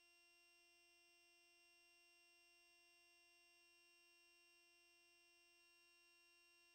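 Near silence: only a faint, steady electrical hum made of several thin, unchanging tones, with nothing else happening.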